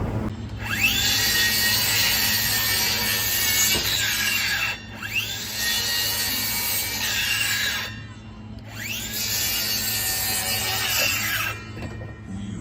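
Power saw cutting timber three times, each cut a few seconds long and starting with the motor spinning up.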